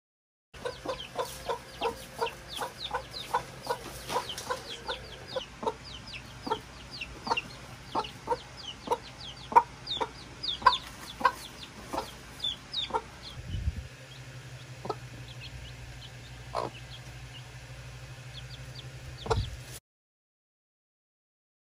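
Domestic chickens calling while they forage: a hen clucking over and over, several clucks a second, and chicks peeping in short, high, falling chirps. The calls grow sparser after about halfway, with a low steady hum underneath and a dull thump near the end.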